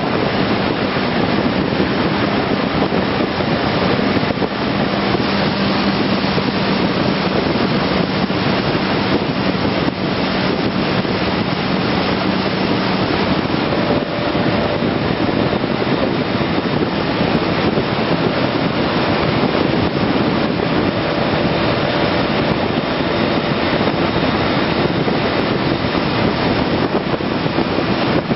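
Wind rushing over the microphone of a BMW K1200S motorcycle ridden at speed, with the bike's inline-four engine humming underneath. The engine note changes to a higher pitch about halfway through.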